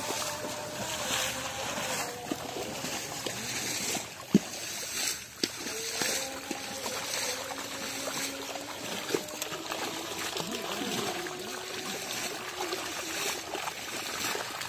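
Fish trapped in a drag net at a pond's edge, splashing in the shallow water, with a few sharp splashes about four and five seconds in.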